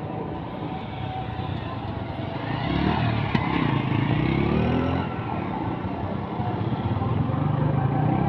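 Traffic: bus engines running while motor scooters accelerate past, once around three seconds in and again near the end, with one sharp click about three seconds in.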